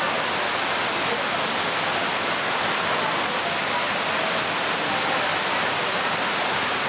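Heavy rain falling steadily, an even rushing hiss that does not let up.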